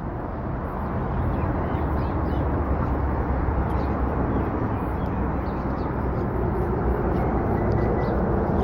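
Steady outdoor background noise with a low rumble, and a few faint, short bird chirps over it.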